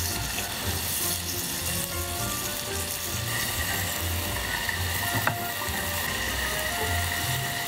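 Beef sizzling on a grill: a steady crackling hiss, under background music.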